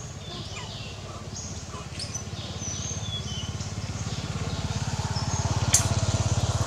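A small engine running with a low, rapidly pulsing rumble that grows louder from about halfway through, as if a motor vehicle is approaching, with short high chirps above it and one sharp click near the end.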